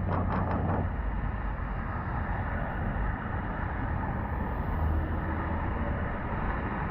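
Steady city street traffic noise: vehicle engines running with a continuous low hum and general street hubbub.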